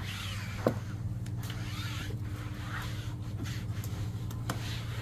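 Hands rubbing and pressing a solar panel down onto a minivan roof to bed it on adhesive tape, with a sharp tap about two-thirds of a second in and a fainter one near the end. A steady low hum runs underneath.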